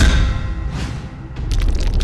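Television programme ident: a low rumbling swell peaks in a boom, a second swell follows, and the theme music comes in suddenly about one and a half seconds in.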